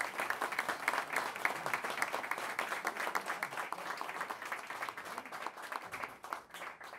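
Audience applauding, a dense patter of hand claps that thins out and dies away near the end.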